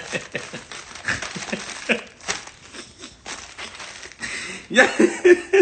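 Plastic mailer bag crinkling and crackling as it is handled and cut open with scissors. A man laughs near the end.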